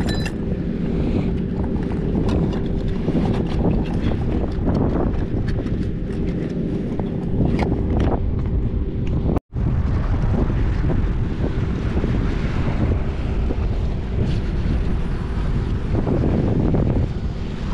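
Strong northeasterly wind buffeting the microphone: a steady low rumble with a few faint clicks. The sound cuts out for an instant about halfway through.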